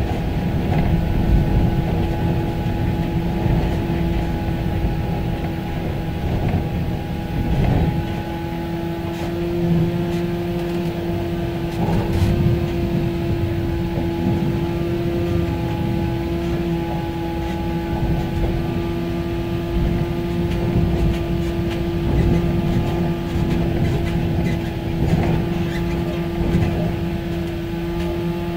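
Tractor-drawn ladder truck rolling, heard from inside its rear tiller cab: a steady low rumble with a constant hum, and a few rattling knocks about eight and twelve seconds in.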